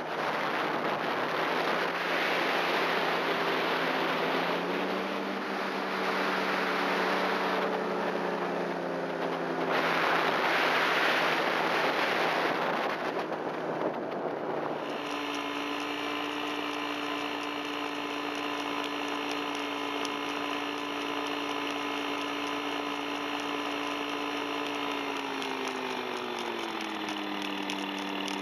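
Tandem paramotor's engine and propeller running steadily in flight, with heavy wind noise on the microphone that swells and fades. About halfway through the sound switches abruptly to a cleaner, less windy engine drone, which falls in pitch near the end as the engine slows.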